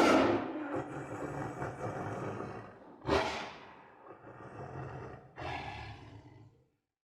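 Tiger roaring three times, each call starting loud and tailing off into a low rumbling growl.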